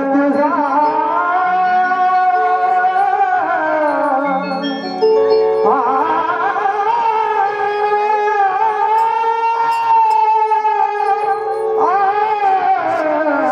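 A Marathi folk song: a singer holds long, ornamented notes with heavy vibrato over an accompaniment that moves in steps.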